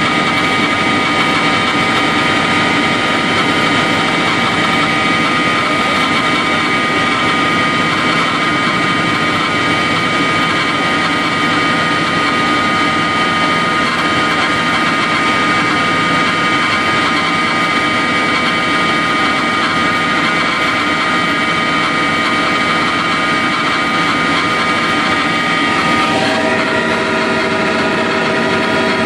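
Helicopter in flight heard from inside the cabin: the turbine engine and rotors running steadily, with a constant whine of several high tones over a loud rushing noise. About three seconds before the end, some of the whine's tones shift to new pitches.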